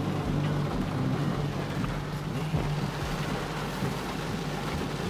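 Steady noise inside a moving car's cabin in heavy rain: a low engine and road hum with rain and tyres on the flooded road.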